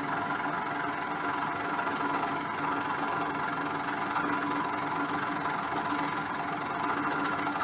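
Ceiling-suspended air conditioner running with a steady mechanical hum carrying a few held tones.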